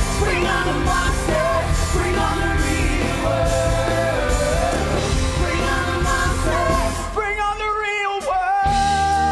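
Rock music with a singer over a heavy beat. About seven seconds in, the bass and drums drop away under the voice for a moment, then come back in.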